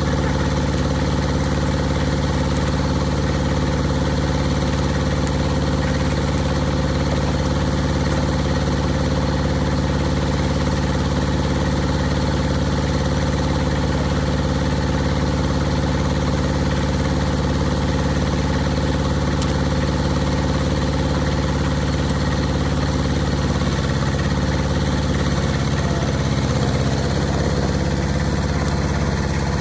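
An engine running at a steady speed, with a slight wavering in pitch about 24 seconds in.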